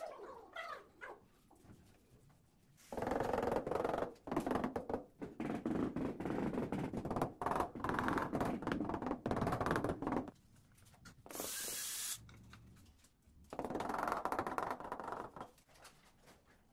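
Rubber mallet tapping rapidly on a large porcelain floor tile to bed it into wet mortar, in two long runs of fast taps with a pause between. A short hiss comes in the pause.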